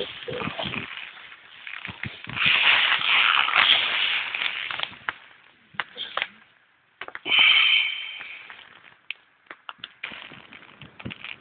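Crackling, rustling noise against the open microphone, swelling and fading twice, with scattered sharp clicks.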